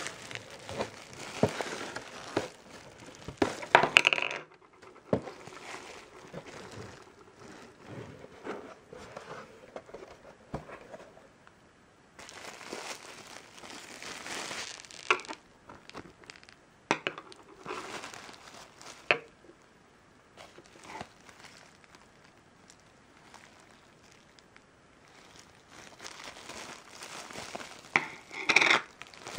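Plastic bubble-wrap packaging crinkling and rustling in irregular handfuls as it is handled and unwrapped, with sharp crackles. It is loudest about four seconds in and near the end, and quieter in between.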